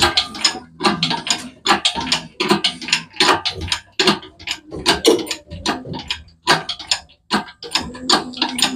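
Rapid, irregular metallic clicking and ratcheting of a hoist mechanism working to lift an engine, transmission and transfer case out on a strap.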